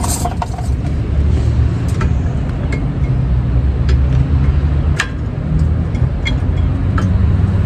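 A few sharp, light metal clicks as brake pads are worked out of a disc brake caliper bracket, over a steady low rumble of background noise.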